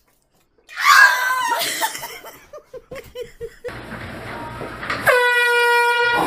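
Human voices: a loud shriek about a second in, a short run of laughter, then a long, steady, high cry held for over a second and cut off abruptly.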